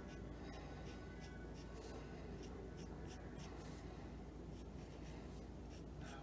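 Paint marker scratching in short strokes across the edge of a plastic console vent, laying down a silver pinstripe, over a steady low hum.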